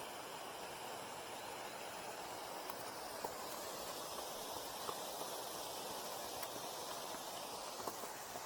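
Steady rustling hiss of outdoor noise, with a few faint scattered clicks.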